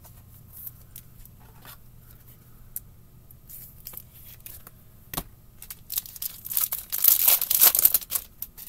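A foil hockey card pack torn open: a loud crinkly ripping for about two seconds near the end, after a few light clicks and a sharp tap about five seconds in.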